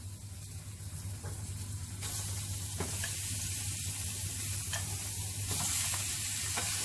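Raw chicken pieces sizzling in a little hot mustard oil in a wok. The sizzle grows louder in steps, about two seconds in and again near the end, as more pieces are tipped in from a bowl. A few faint clicks come as pieces land.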